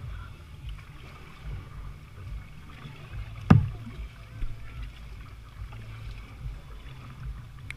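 Low, steady rumble of a plastic kayak drifting on water, picked up by a camera mounted on the boat, with one sharp knock about three and a half seconds in.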